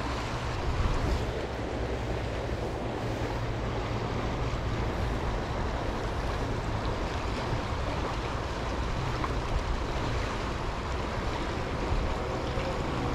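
Fast-flowing stream water rushing steadily over a riffle, with a low rumble of wind on the microphone.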